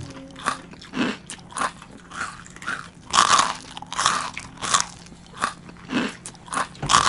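A person biting into and chewing crispy breaded fried chicken wings: a run of crunches, about one or two a second, the loudest about three seconds in and again near the end.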